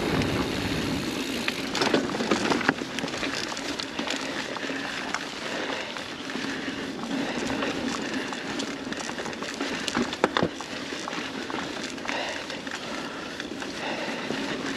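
Mountain bike riding fast over a dirt singletrack: a steady rush of tyre and wind noise, broken by knocks and rattles from the bike over bumps, the loudest about ten seconds in.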